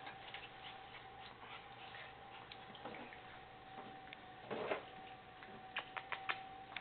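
Puppies moving about on a bare concrete floor: light, scattered clicks and ticks of small claws, a brief scuffle about two-thirds of the way in, and a quick run of sharper clicks near the end, over a faint steady whine.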